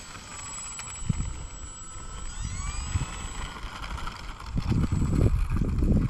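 Electric motor and propeller of an E-flite Valiant RC plane whining, the pitch sliding up and down as the throttle changes for the takeoff roll. Gusts of wind buffet the microphone with a low rumble that grows and becomes loudest over the last second or so.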